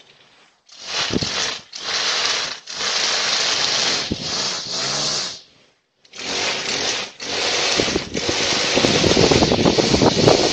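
Leaf blower run in long bursts of throttle with brief dips, its engine pitch rising and falling. It cuts out for about half a second midway.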